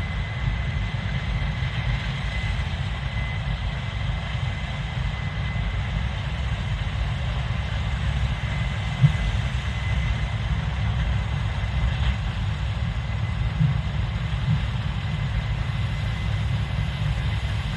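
Case IH 7230 Axial-Flow combine running steadily while harvesting soybeans, its 8.7-litre six-cylinder diesel giving a steady low rumble with a faint steady high whine. A few small knocks come through, the sharpest about nine seconds in.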